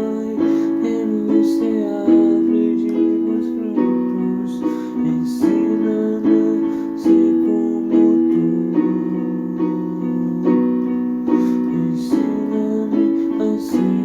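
Instrumental music with keyboard or piano chords. Each chord is struck and then fades, and the harmony shifts every second or two.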